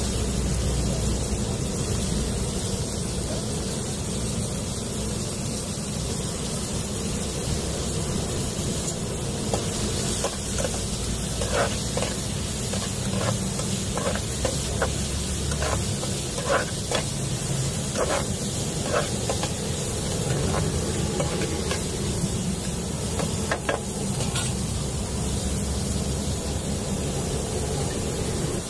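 Chopped vegetables frying in a steel pan with a steady sizzling hiss. Through the middle stretch a metal spatula clinks and scrapes against the pan in a run of short sharp knocks.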